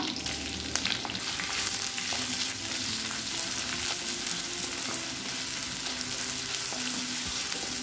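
Sliced onions frying in hot oil in a cast-iron kadai, a steady sizzle while they are stirred, with a few light clicks of the spatula.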